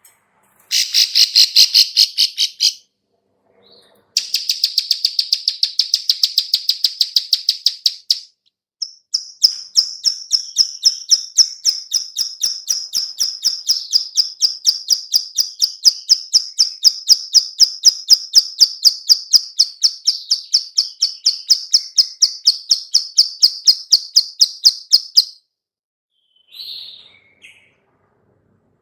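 Female ciblek sawah (plain prinia) giving its dry 'klik-klik' call, the call used as a lure for other birds. It comes as rapid, evenly paced runs of clicks: two short runs, then one long run of about four clicks a second, and a single short note near the end.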